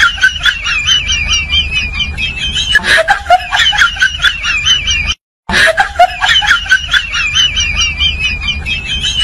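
A looped, high-pitched warbling sound effect like sped-up giggling, over a steady ticking of about four or five clicks a second. It cuts out briefly about five seconds in, then the same stretch plays again.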